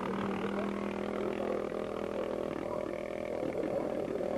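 Motorcycle engine running at steady revs, its note wavering near the end.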